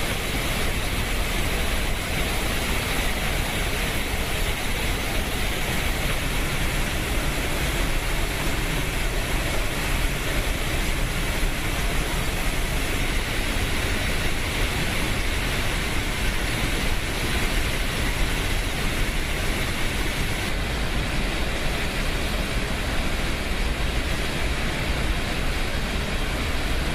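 Floodwater from the opened floodgates of the Shimen Dam pouring down the spillway: a loud, steady rush of water with a deep rumble.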